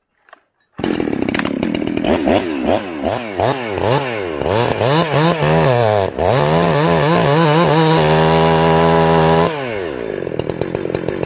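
Two-stroke chainsaw, its carburetor's high-speed jet just leaned out about a quarter to half a turn, revved in quick blips and then run at full throttle through a log. It holds a steady high pitch for a second or two before the revs drop back near the end.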